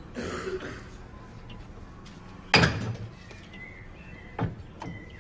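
A loud, sharp knock about two and a half seconds in, with a short low ring after it, and a smaller knock near the end. Studio audience laughter fades out at the start.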